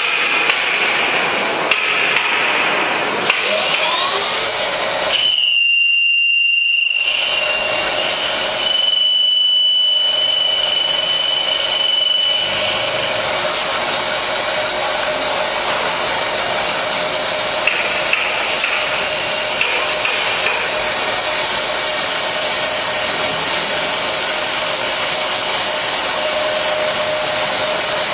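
CK200 CNC vertical lathe running with a steady machining noise. A high spindle whine rises about four seconds in, holds a steady pitch, and falls away near the end, with a few light clicks.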